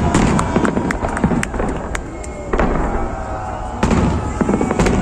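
Fireworks salute bursting overhead: a run of sharp bangs, several within the first two seconds and more near the end, with crackling between them.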